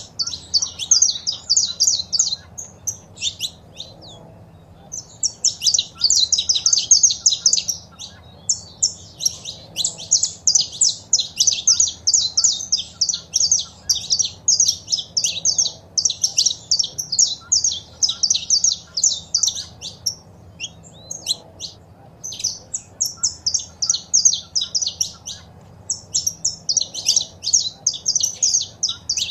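Saffron finch singing and calling: fast runs of sharp, high chirps in phrases a few seconds long, broken by short pauses.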